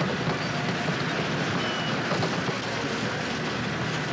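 Gravel pouring down a steel conveyor chute, a steady rushing and rattling over a machinery rumble.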